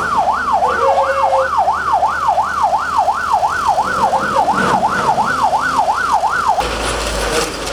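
Siren on a security vehicle yelping, sweeping rapidly up and down about three times a second. It cuts off suddenly near the end, and a rumbling noise takes over.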